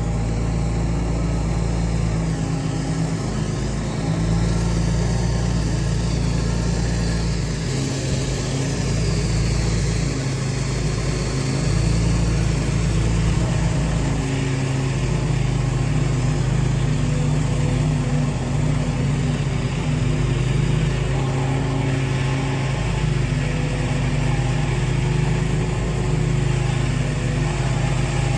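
Pressure washer's engine running steadily, with a constant hiss over it, as the driveway is being cleaned.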